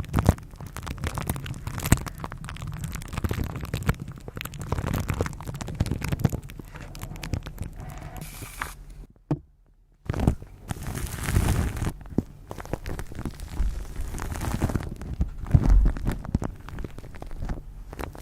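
Close-miked ASMR trigger sounds: dense crackling with many small clicks and taps. They stop for about a second, around nine seconds in, then start again.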